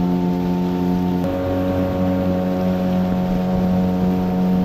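Outboard motor of an aluminium fishing boat running steadily at speed, a constant drone with water rushing along the hull; its tone shifts slightly about a second in.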